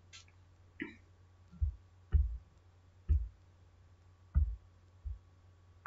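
Dull low thumps, about six at uneven spacing roughly a second apart, after a lighter click near the start.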